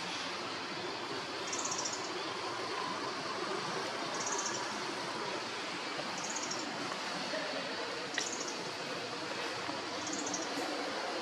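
Steady outdoor hiss with a short, high trill repeating about every two seconds.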